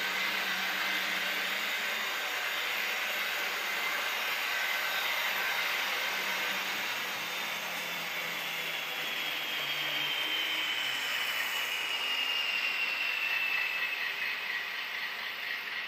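TT-scale model coal train with an MTB class 740 locomotive running on sectional track, a steady rolling noise of its small electric motor and metal wheels on the rails. Late on, a thin high whine slowly falls in pitch.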